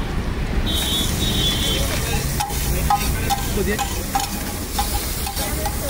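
Butter sizzling as it melts on a hot flat griddle, with a metal spatula scraping and tapping on the griddle several times through the second half.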